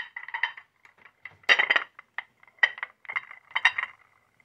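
Dishes and table decorations being moved and set down on a laid table, clinking against one another in several short clusters, loudest about a second and a half in and again near the end.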